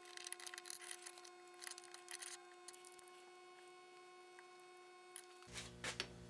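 Faint clicks and scraping of small metal parts being handled: a hex key and a brass hex-stock jig in a lathe quick-change tool holder. The handling is heard mostly in the first two seconds and again near the end, over a steady hum.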